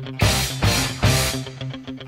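Rock music with distorted guitar and drums, two loud crashes in the first second followed by quicker, lighter hits.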